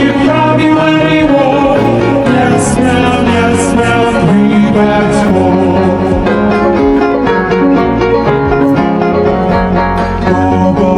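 Upbeat children's song backing music with instruments and a steady beat, playing loud and continuous between sung verses.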